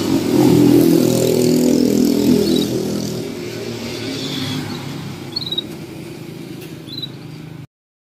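A motor vehicle engine running close by, loudest in the first few seconds and then fading away. A few short, high chirps from canaries come through, and the sound cuts off abruptly just before the end.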